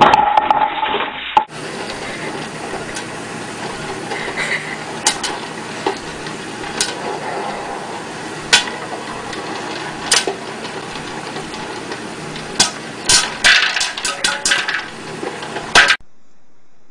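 Popcorn popping in an electric popcorn popper with a clear dome: a steady hiss with single sharp pops every second or two, coming thick and fast near the end. It opens with a brief, louder burst of sound lasting about a second and a half.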